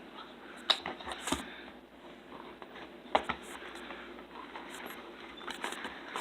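A knife's retail box being opened and its packaging handled: scattered taps and clicks over a faint rustle of cardboard and plastic.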